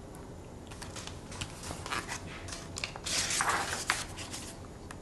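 Pages of a picture book rustling and crinkling as it is handled and lowered, with scattered small taps and a louder rustle about three seconds in.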